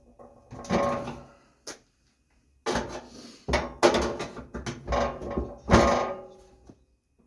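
Metal clanks and rattles with brief ringing as the sheet-steel case and parts of a Suburban NT-16S RV furnace are handled and knocked during teardown. About five clusters of knocks, the loudest near the six-second mark.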